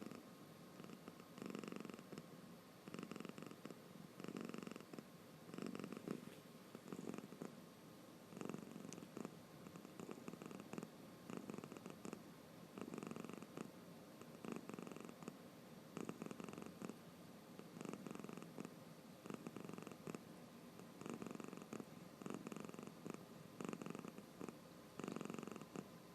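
Sleepy domestic cat snoring softly, a rhythmic rumble with each breath, about one every second and a half.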